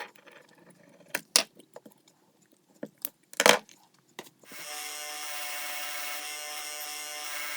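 Metal clinks and knocks from handling the rusty lineman's pliers, then about four and a half seconds in a power tool starts and runs steadily, working the grips off the plier handles.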